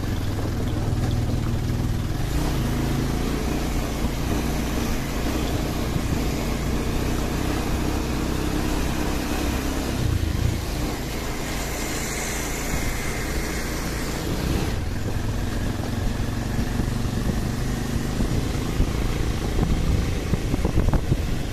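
Motorcycle engine running steadily while riding along a rough dirt track.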